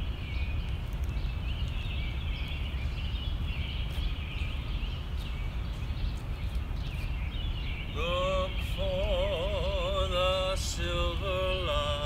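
Steady low outdoor city rumble with faint high chirping. About eight seconds in, a singing voice comes in with a wavering, vibrato-laden line in short phrases, the start of an unaccompanied song.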